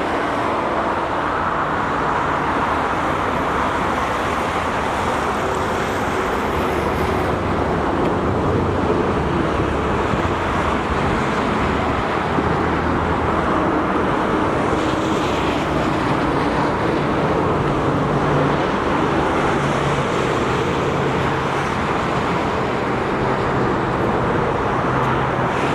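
Steady roar of freeway traffic rushing past without a break: a constant wash of tyre and engine noise.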